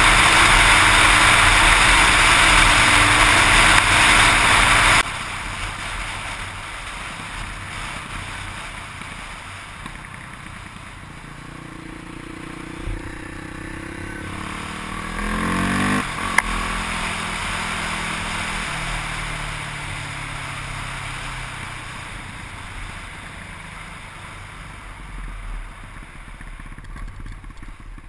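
Yamaha WR400F dual-sport's four-stroke single-cylinder engine heard from the rider's helmet: at highway speed with a loud wind rush for the first five seconds, then after a sudden drop riding slowly, with a rising rev around the middle.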